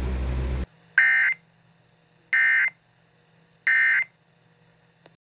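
Emergency Alert System end-of-message signal: three short bursts of buzzing digital data tones, about 1.4 s apart. Before them, a steady low hum cuts off abruptly just under a second in, and a faint click follows near the end.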